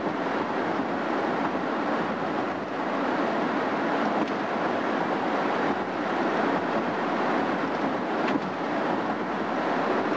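Steady road and wind noise from inside a vehicle's cabin cruising on the interstate at highway speed: an even, unbroken rush of tyres and air with the engine under it.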